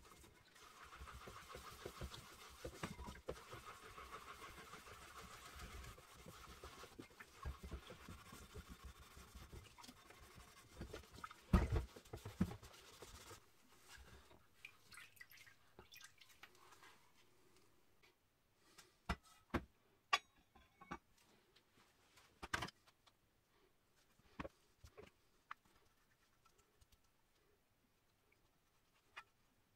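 Scouring pad scrubbing a rusty iron pottery-wheel disc in a plastic tub of liquid rust remover, a steady scratchy rubbing, with a loud thump about twelve seconds in. After that, scattered clicks and knocks as the disc is handled in the tub, then little sound.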